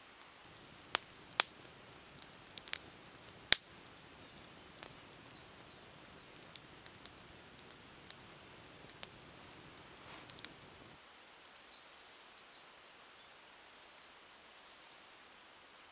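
Campfire of birch logs crackling, with about a dozen irregular sharp pops, the loudest about three and a half seconds in. The crackling stops near eleven seconds, leaving quiet outdoor ambience.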